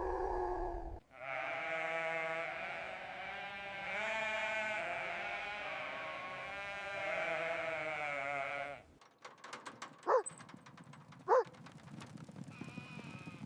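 An animal calling in long, wavering, bleat-like cries for about eight seconds. After a short pause come a scatter of clicks and two short, sharp calls.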